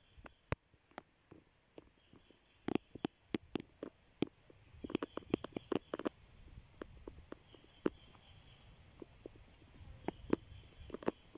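Steady high-pitched chorus of night insects in a tropical forest, with irregular dry clicks and crackles scattered over it, bunched in two clusters about three seconds in and around five to six seconds in.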